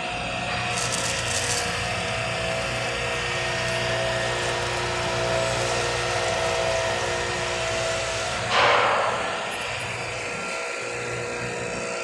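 Cozzoli vial washer running with its pump on: a steady machine hum with several held tones. A brief loud rush of noise comes about eight and a half seconds in.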